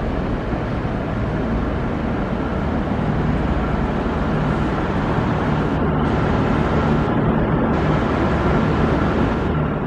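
Diesel engine of the Victorian Railways X-class locomotive X31 running as the locomotive moves slowly through the station, a steady low engine sound that grows slightly louder a few seconds in.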